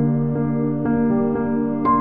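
Soft ambient background music: new notes struck about twice a second over a held low chord.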